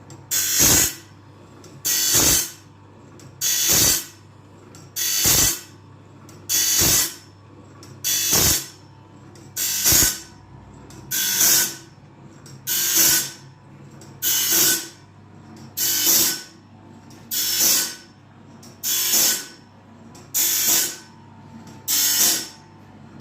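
Band sawmill blade sharpener running, its grinding wheel grinding one tooth at a time: a short harsh grinding burst about every second and a half, repeating evenly, over a steady motor hum.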